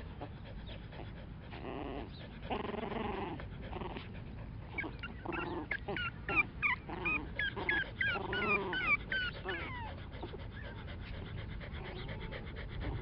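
Five-week-old Norwich Terrier puppies play-fighting: a few low growls about two seconds in, then a run of short, high-pitched yips and squeaks in quick succession through the middle.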